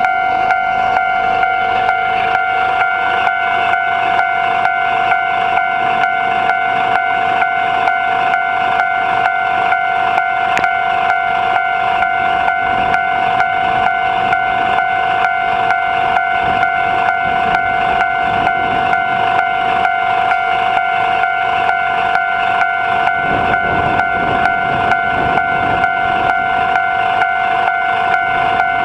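Japanese railway level-crossing alarm ringing in an even, repeating rhythm while the crossing is closed for a train. Near the end a Nagano Electric Railway train rumbles past under the alarm.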